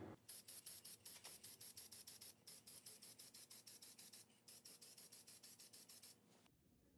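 Aerosol spray paint can hissing in quick short bursts, about six a second, with two brief pauses, stopping about six and a half seconds in.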